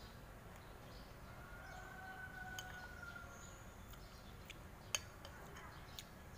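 Faint clinks of a metal spoon and wooden chopsticks against a ceramic noodle bowl as noodles are stirred and lifted, the sharpest click about five seconds in, over quiet room tone.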